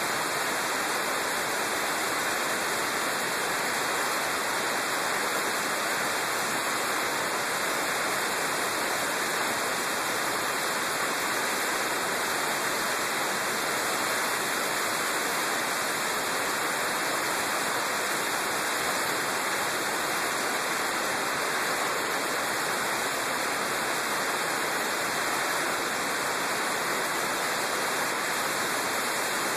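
Steady, even rushing hiss of air on the microphone of a motorcycle-mounted camera at road speed; no engine note stands out.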